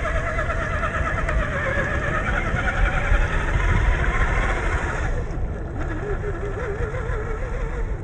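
Whine of the RC Jeep Cherokee crawler's 540 brushed electric motor and gears as it churns through mud, its pitch wobbling rapidly up and down with throttle and wheel slip, over a steady low rumble. About five seconds in the whine drops lower and the higher sounds fade.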